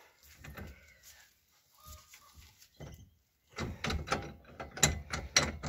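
Steel sockets and a threaded bearing-press tool clinking and rattling as they are handled on the tool's stud: a few faint knocks, then a dense run of sharp metallic clicks and knocks in the last two seconds.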